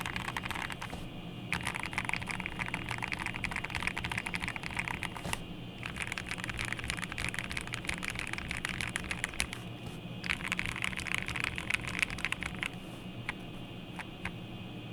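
GMMK Pro mechanical keyboard with a POM plate and lubed Everglide Aqua King linear switches being typed on quickly, in three fast runs of keystrokes with short pauses between. Near the end the typing slows to a few single keypresses.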